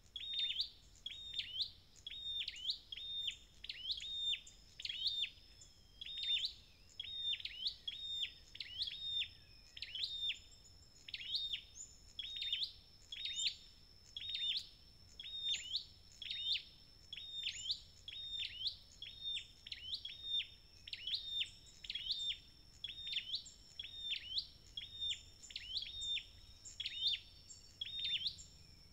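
Chim sâu đầu đỏ (red-headed flowerpecker-type songbird) giving short, sharp, high chip calls over and over in an even rhythm, about three calls every two seconds. A steady thin high tone runs underneath.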